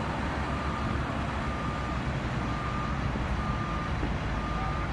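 A vehicle's reversing alarm beeping about once a second, five times, over the low steady rumble of fire truck diesel engines running.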